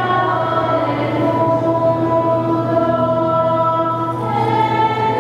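Choir singing a slow hymn in long held notes, moving to a new note about a second in and again near the end.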